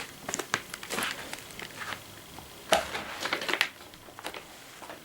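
Rustling of cardboard packaging and scattered light knocks as a firework cake is pulled out of its box, with one louder knock about two and a half seconds in.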